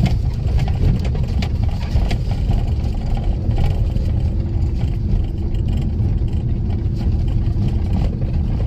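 Car driving along a rough dirt road, heard from inside the cabin: a steady low engine and road rumble with scattered small knocks and rattles.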